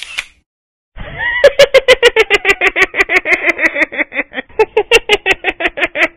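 A cartoon voice laughing in a long, rapid string of "ha-ha" pulses, about five or six a second, starting after a second of silence and pausing briefly near the middle.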